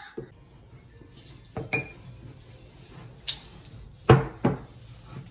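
Utensil knocking and clinking against a bowl while melted gummy bears are stirred into cornstarch and powdered sugar: about five separate strikes, the loudest about four seconds in.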